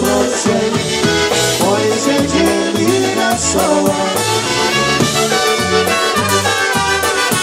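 Live polka band playing a Goral polka: trumpets carrying the melody over accordion, drum kit and electric bass, with the bass bouncing between two notes in a steady polka beat.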